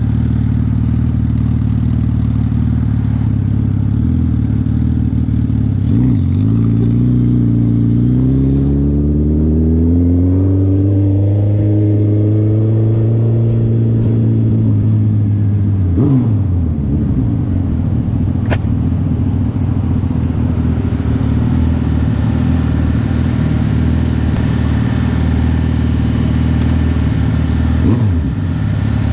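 2020 Suzuki Hayabusa's 1340 cc inline-four engine heard from the rider's seat. It runs steadily at low revs, then revs up with pitch rising for several seconds, drops sharply about sixteen seconds in, and runs on steadily.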